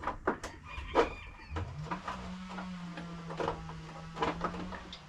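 Light clicks and rattles of parts being handled; from about a second and a half in, a small motor spins up with a rising hum and runs steadily for about three seconds before stopping.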